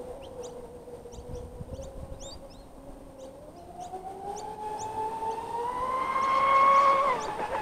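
Twin brushless electric motors of a high-speed RC catamaran whining, with no speech. The pitch holds low at first, climbs steadily through the second half as the motors spin up, is loudest near the end, then drops away. Small birds chirp throughout.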